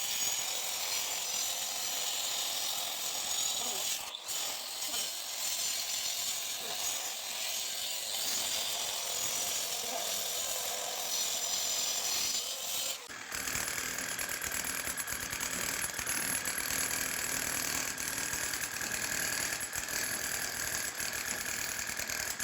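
Electric angle grinder fitted with a double cutting blade, running and cutting a channel into a wall with a steady high grinding noise. About halfway through the sound changes abruptly to a steadier motor whine with a high tone.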